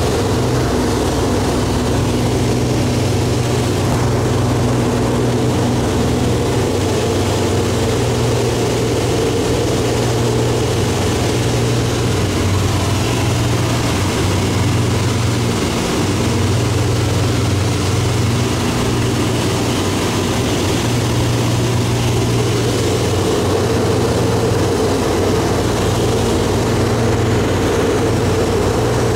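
Light propeller aircraft's engine droning steadily in cruise flight, heard from inside the cockpit with airflow noise over it.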